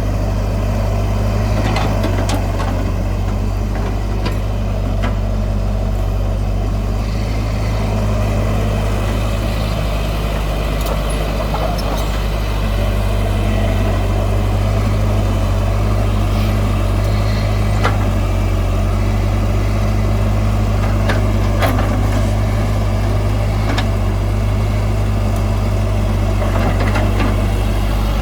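Heavy diesel earth-moving machinery running steadily, with occasional short metallic knocks.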